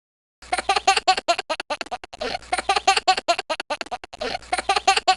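A baby laughing in a long run of quick, high-pitched bursts, several a second, starting about half a second in after a brief silence.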